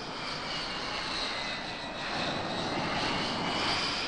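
Dassault Mirage III jet fighter's Atar turbojet running as the aircraft taxis, a steady rushing noise with a high whine that sags slightly and then rises toward the end.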